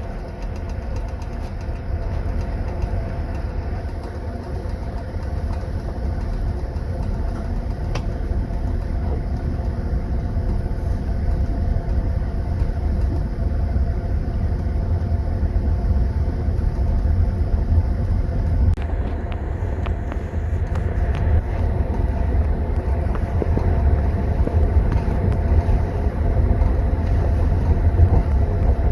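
Passenger train running, heard from inside a sleeping-car compartment: a steady low rumble of the wheels and the car, with a few faint, light clicks now and then.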